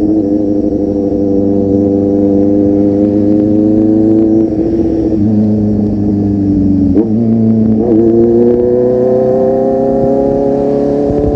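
Kawasaki Z800 inline-four running through a full-system aftermarket exhaust while riding, its note climbing slowly. About seven seconds in it dips sharply, like a gear change, then climbs again.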